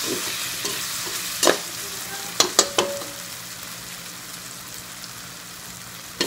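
Eggplant frying in a metal wok with a steady sizzle. A metal spatula scrapes and knocks against the wok several times in the first three seconds, then again once near the end.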